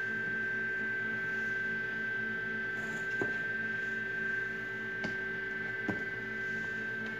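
Steady electrical hum with a high whine, and three light knocks from handling as a plastic bowl and paper sheet are set on top of a cardboard incubator box.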